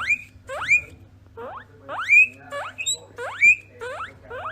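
A small animal giving a run of short squeaks, each rising sharply in pitch, about two a second.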